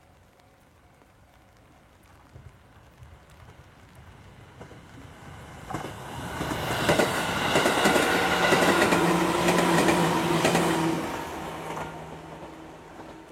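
Something passes by: the sound builds over a few seconds, stays loud for about five seconds with rapid knocks and a few steady tones, then fades away.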